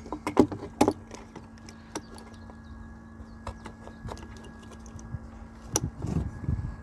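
Sharp clicks and clattering knocks of a temperature probe and its cable being handled at a bucket of water, several in the first second, then single knocks about two seconds in and near the end, followed by a low rumble. A steady low hum runs underneath.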